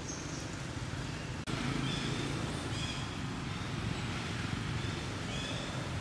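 Outdoor background: a steady low rumble with several short, high-pitched chirping animal calls over it. The sound changes abruptly about a second and a half in, as at an edit.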